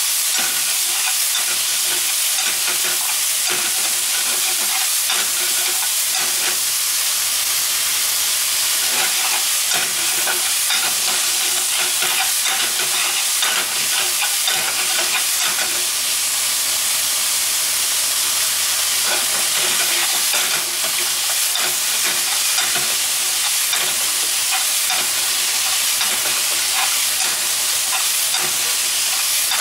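Sliced bitter melon and pork sizzling steadily in a frying pan as they are stir-fried, a wooden spatula scraping and tapping against the pan over and over.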